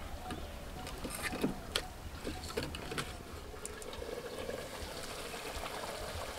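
Scattered light knocks and clicks of dry firewood sticks being fed into a clay wood-burning stove (chulha), over a faint steady hiss.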